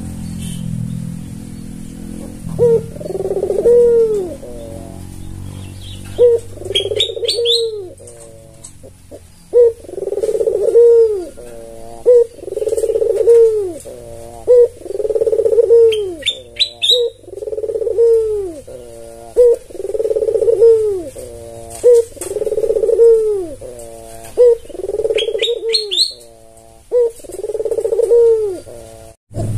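White ringneck dove (puter) cooing over and over, each coo a rolling note that rises and falls, repeated about every one and a half to two seconds from a couple of seconds in. Three short high chirps cut in now and then.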